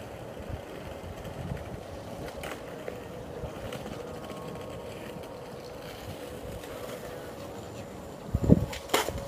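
Skateboard wheels rolling steadily over paving. Near the end comes a heavy thud and then sharp clacks of the board as a trick is popped and landed.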